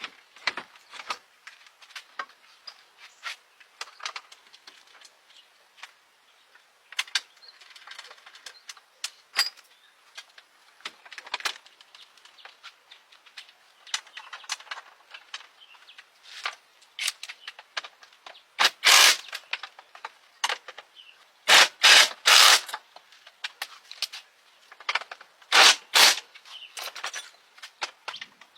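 Repair work on a truck: scattered sharp clicks and knocks of tools and parts, with a few short, louder noisy bursts about two-thirds through and again near the end.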